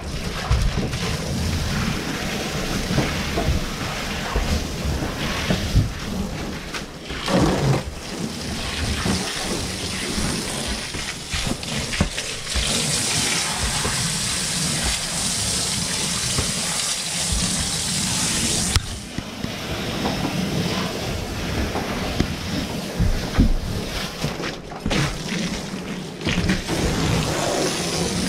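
Garden hose spraying water along the floor of a metal roof gutter: a steady hiss and splatter of water on metal, over a constant low rumble. The hiss turns louder and brighter from about twelve to nineteen seconds in.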